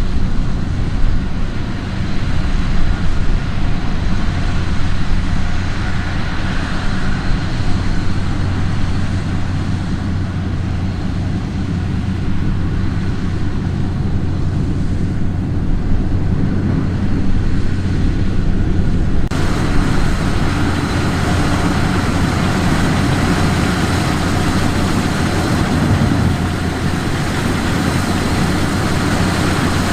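Combine harvester running steadily with a loud, continuous engine and machinery drone; the higher-pitched part of the sound changes abruptly about two-thirds of the way through.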